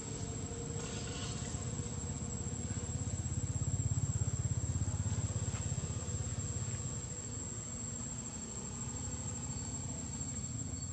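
A thin, steady, high-pitched insect drone, with a low engine hum that swells and fades around the middle.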